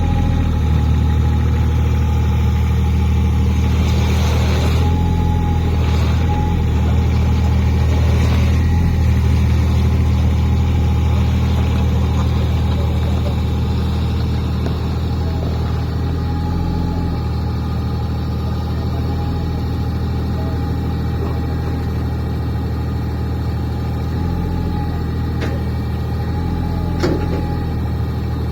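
3-tonne mini excavator's diesel engine running steadily as the machine is worked onto the truck, a little louder for the first ten seconds or so and then easing, with a steady whine above it and a few knocks.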